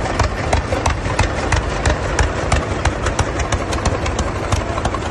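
Vintage two-cylinder tractor engine running at a slow idle: rapid, evenly spaced exhaust pops over a low rumble.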